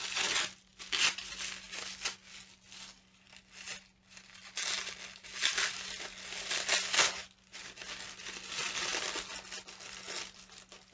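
Wrapping paper being handled and unwrapped, crinkling and rustling in irregular bursts.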